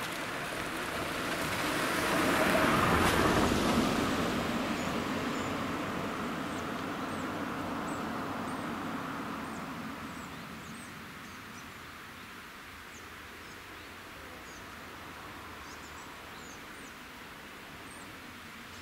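A car drives over the level crossing and past, its tyre and engine noise swelling to a peak about three seconds in and fading away over the following several seconds. After that, only faint high bird chirps over a quiet outdoor background.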